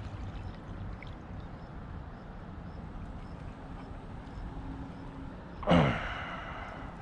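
A single short splash of water at the bank's edge about six seconds in, over a steady low background rumble.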